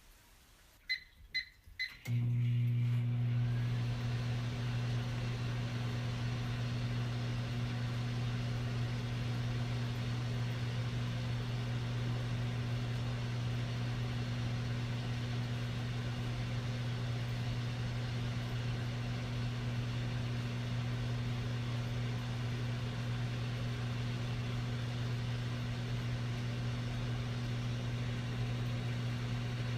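Whirlpool microwave oven being started: three short keypad beeps, then about two seconds in the oven comes on with a loud, steady low hum that runs on unchanged.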